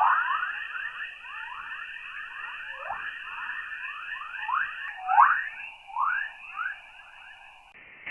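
Spacecraft radio and plasma-wave recording played as sound: a rapid, overlapping run of short whistling tones, each falling steeply in pitch, over a thin steady hiss. The whistles stop just before the end.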